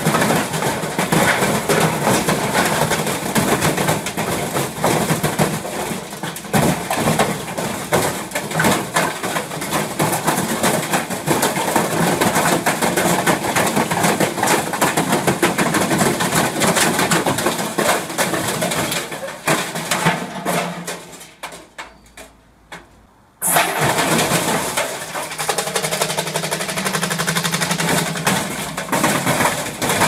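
Front-loading washing machine running a spin on a trampoline, its drum motor running while the stripped cabinet bangs, rattles and clatters as it bounces and tips. About 20 seconds in the noise dies down to near quiet for a few seconds, then the clatter comes back abruptly.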